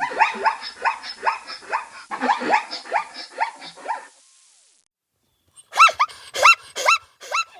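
Cranes calling: a quick series of short falling calls for about four seconds, then after a short pause louder rising-and-falling calls, about two a second.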